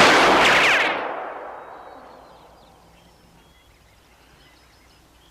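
A sudden loud blast that cuts in sharply, holds for about a second and dies away over the next second or two.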